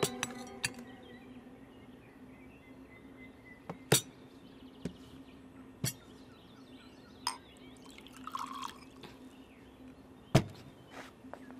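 Glassware and tableware clinking and being set down on a table, with scattered light knocks and a brief pour of liquid into a glass about two-thirds of the way through. A sharper knock near the end is the loudest sound.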